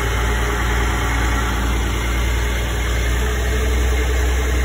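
Heavy truck's diesel engine running steadily, driving the hydraulics that raise an end-dump trailer's box.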